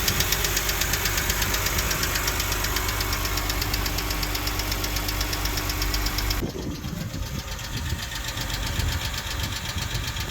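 BMW N52 straight-six engine idling with a rapid, even ticking from its hydraulic valve adjusters (lifters), whose oil has gone thick. About six seconds in, the sound cuts to a quieter, duller recording of the engine running with the ticking much less prominent.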